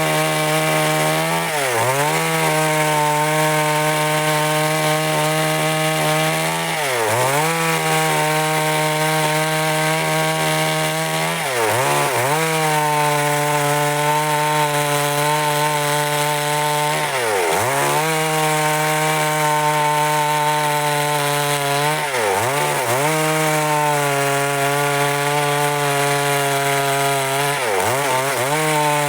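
Stihl MS382 two-stroke chainsaw running at high speed while cutting wood. Its pitch drops briefly and climbs back about every five seconds.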